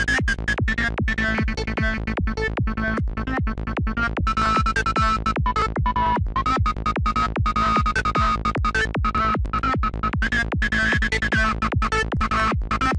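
Dark FM-style psytrance lead patch from the NI Massive software synthesizer, looping a fast chopped pattern at 150 BPM. A high tone wavers up and down in pitch as the patch's scream filter is modulated.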